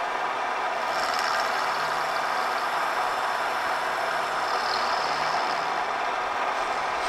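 Vertical milling machine running, its end mill cutting into a metal plate under mist coolant: a steady cutting and hissing noise, with a faint high whine at times.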